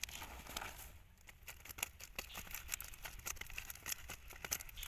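Irregular light crackling and tapping as a fish is shaken out of a woven bamboo fish trap onto a banana leaf in a basket, the wicker, the leaf and the fish rustling against each other.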